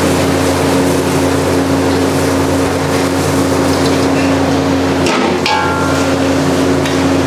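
Steady mechanical drone of commercial kitchen equipment. About five seconds in, a metal ladle clinks and scrapes briefly in a steel kadai as puffed rice is stirred.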